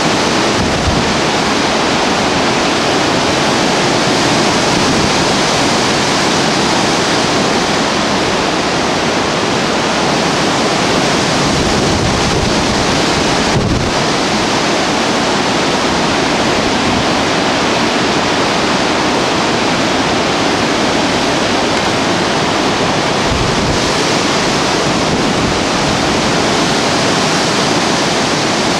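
Storm-force wind rushing steadily through trees, a loud unbroken noise, with wind buffeting the microphone.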